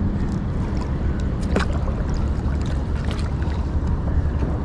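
Steady low wind rumble on the microphone, with a few light clicks and rustles as a gillnet is handled from a kayak, the clearest about one and a half seconds in.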